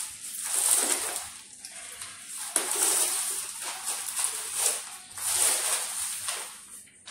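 Wet, scraping feeding noises as a cat is spoon-fed wet food from a metal bowl: the cat licking the spoon, then the spoon scooping in the bowl, in four or five short bursts.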